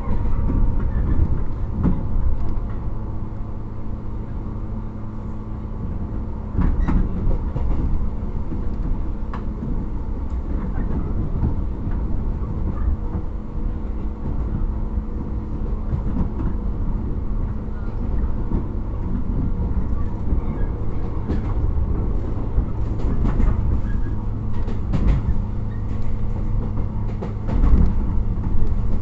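Interior running noise of a JR 115 series electric train's motor car (MT54D traction motors) under way: a steady low hum and rumble, with clicks from the rail joints coming in clusters, more of them near the end.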